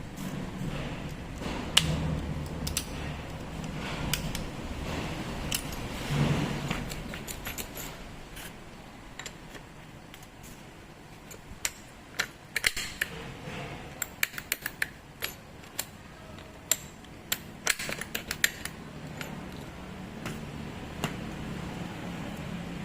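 Sharp clicks and light metallic taps of hand tools and small parts being handled, scattered and densest past the middle, over a low rumble in the first several seconds.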